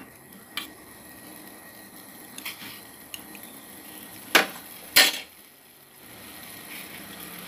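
A metal ladle in a metal pot of boiling avaram flower tea: a few light clinks, then two sharp metal knocks about half a second apart near the middle, over the steady low noise of the boiling pot.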